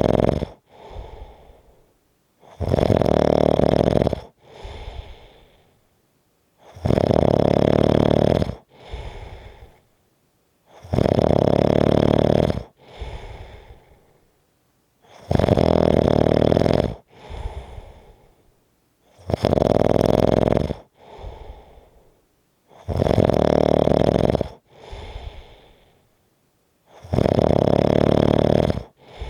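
A person snoring heavily in a slow, regular rhythm: a loud, rough snore of about a second and a half roughly every four seconds, each followed by a shorter, softer breath. There are seven snores.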